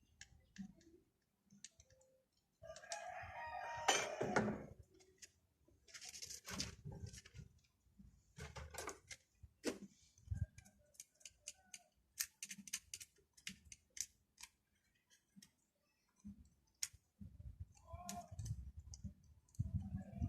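A rooster crows once, about three seconds in, the loudest sound here; scattered metallic clicks and knocks of hand-tool work follow through the rest of the stretch.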